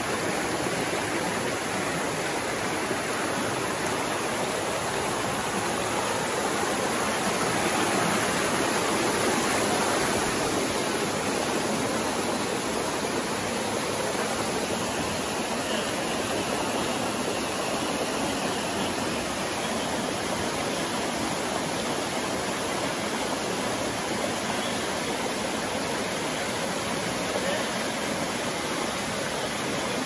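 Stream water rushing over rock rapids at a small waterfall: a steady, even rush that swells slightly about a third of the way in.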